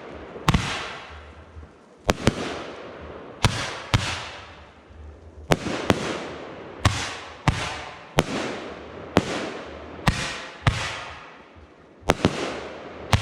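Fireworks display: a rapid run of bursts, a sharp bang about once a second, each trailing off in a fading hiss.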